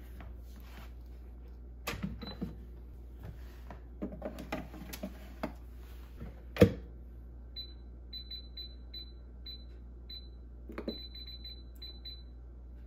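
Pampered Chef Deluxe Air Fryer being loaded: metal rack and door clatter, with a loud clunk about six and a half seconds in. This is followed by a string of short high beeps from its control buttons as the timer is set.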